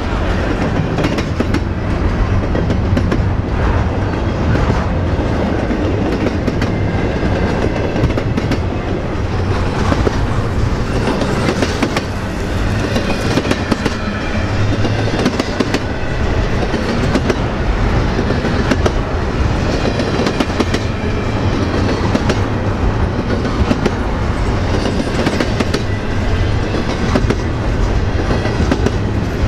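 Freight train cars rolling steadily past at close range: a continuous rumble with wheels clicking over rail joints.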